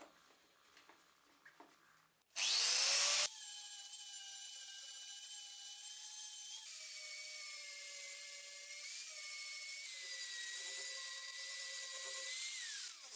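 Angle grinder with a sanding disc grinding the black scale and patina off a rusty axe head. Faint clicks of clamping come first, then about two seconds in the motor spins up with a rising whine and runs on as a steady high whine, which falls away near the end.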